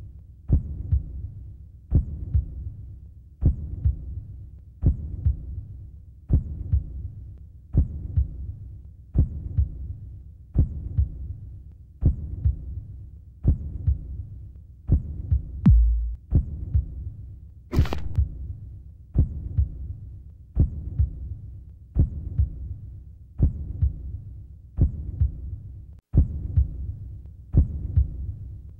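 Heartbeat sound effect: slow, regular low double thumps, about one pair every one and a half seconds, over a low hum. About eighteen seconds in there is a brief hiss.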